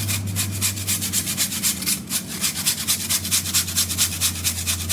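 A frozen peach scraped back and forth on a fine handheld metal grater, giving quick, even rasping strokes about five a second, over a steady low hum.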